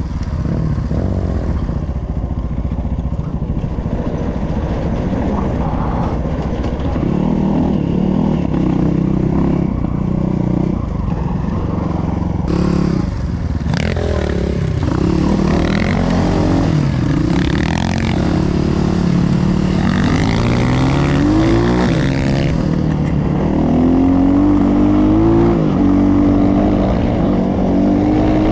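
Enduro motorcycle engine running and revving, its pitch rising and falling repeatedly, with more frequent rises in the second half. There is a short rush of noise about twelve seconds in.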